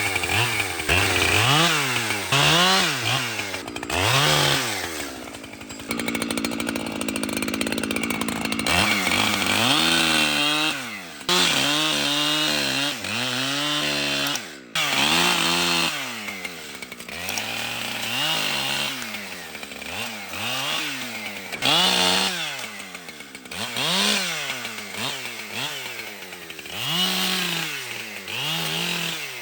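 Two-stroke chainsaw running, its engine revved up and down over and over in quick swells. It holds a steady high speed for about three seconds early on, then goes back to rising and falling revs.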